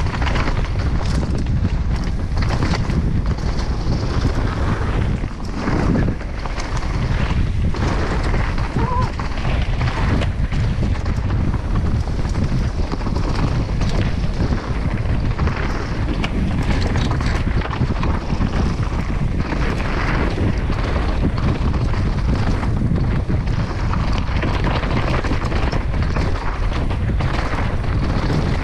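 Wind rushing over a helmet-mounted camera's microphone during a fast downhill mountain-bike descent, with the tyres running over dirt and rocks and frequent knocks and rattles from the bike on rough ground.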